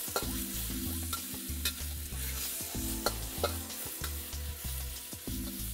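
Sliced beef and garlic sizzling in a very hot oiled wok while a metal wok spatula stirs them. The spatula scrapes and clicks against the pan several times.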